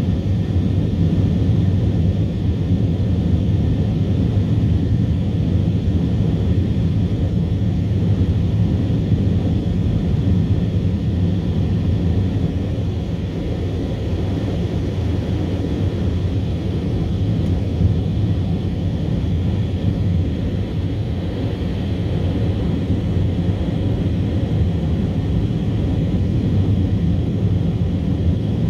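Cabin noise inside an Airbus A320-232 shortly after takeoff: the steady low drone of its IAE V2500 turbofan engines and the airflow, with a faint steady high whine over it.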